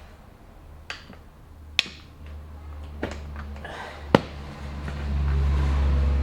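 Tyre levers and tyre bead knocking against a motorcycle wheel rim as the tyre is forced on by hand: four sharp clicks a second or so apart, the last the loudest, with a low rumble of handling that swells near the end.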